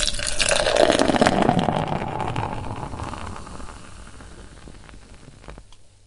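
Beer pouring into a glass. The stream splashes loudly for about the first two seconds, then tapers off and fades out as the pour ends.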